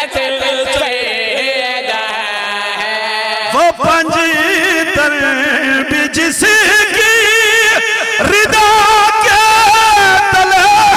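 A man chanting a devotional qasida into a microphone, holding long, ornamented notes. The voice grows louder and fuller about three and a half seconds in.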